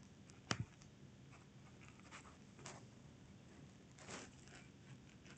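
Near silence of room tone, broken by one sharp computer-mouse click about half a second in, then a few faint ticks and rustles.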